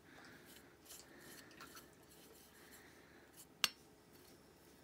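Faint scratchy rubbing of a paintbrush laying thick paste onto a metal alarm-clock case, with one sharp click about three and a half seconds in.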